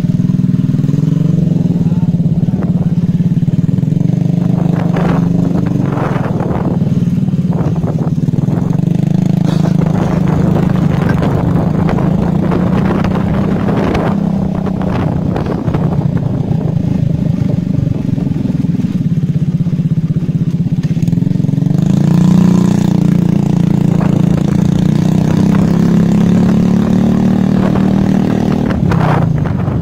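Small motorcycle engine running steadily while being ridden, heard close up from the rider's seat. The engine note swells a little about three-quarters of the way through, and a few brief rushes of noise break in now and then.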